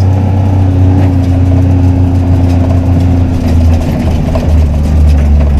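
A vehicle engine running steadily with a loud low hum; its note shifts lower about three and a half seconds in.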